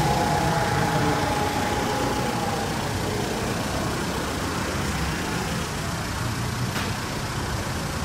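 Public warning siren winding down at the end of a false alarm caused by a technical fault: its tone fades out over the first two or three seconds while its lower tones slide down in pitch. A steady background rumble of street noise carries on after it.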